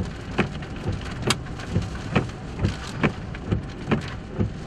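Rain striking a vehicle's roof and windshield, heard from inside the cab as separate irregular taps, a few a second, over a steady low hiss.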